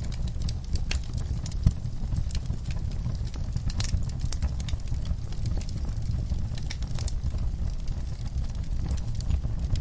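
Outdoor firepit fire crackling, with irregular sharp pops over a steady low rumble; one pop stands out louder about two seconds in.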